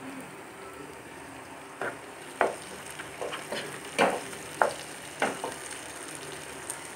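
Chopped onions, green chillies and freshly added tomatoes sizzling in a non-stick frying pan while a wooden spatula stirs them. Its strokes scrape and knock against the pan several times at an uneven pace from about two seconds in.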